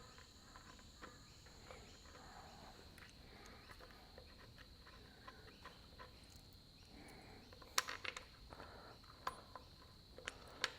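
Faint handling of steel bolts and spring washers being fitted into an engine's timing cover housing, with light taps and two sharp metallic clicks, one about eight seconds in and one near the end, over a steady high-pitched whine.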